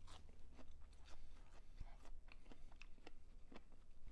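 Close-up chewing of a crunchy fried pickle, with irregular crisp crunches of the breading.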